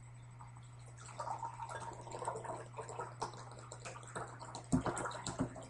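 Water pouring from an upturned plastic water bottle into a glass container, starting about a second in, with a few louder knocks near the end.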